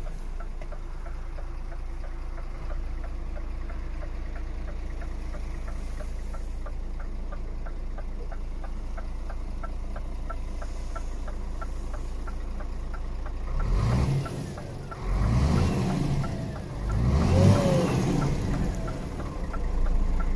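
Scania R410 truck's 13-litre straight-six diesel idling steadily with a light regular tick, heard from inside the cab. About two-thirds of the way in, it is revved in several short blips.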